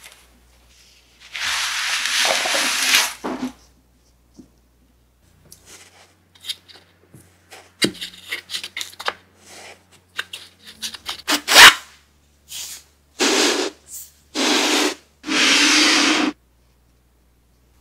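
Kinetic sand rubbed and pressed by hand, a gritty, hissing rub. A long rubbing stroke comes about a second in, then a stretch of small crackles and clicks as sand is packed into a plastic cutter, with one sharp click near the middle, and three short rubbing strokes near the end.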